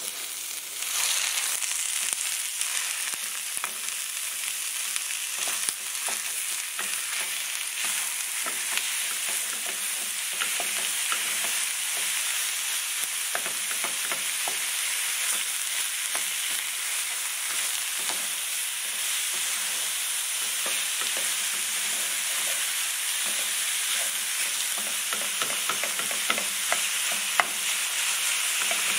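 Ground beef sizzling in a hot stainless steel skillet with onions and garlic in olive oil, getting louder about a second in. A plastic slotted spatula breaks up the meat, scraping and tapping against the pan throughout, with one sharper tap near the end.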